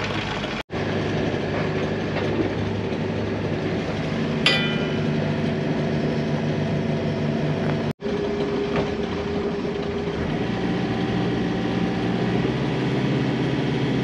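A sailing yacht's inboard diesel engine running steadily at low revs, its pitch shifting as the single-lever throttle and gear control is worked while the boat anchors. There is a short metallic clink about four seconds in.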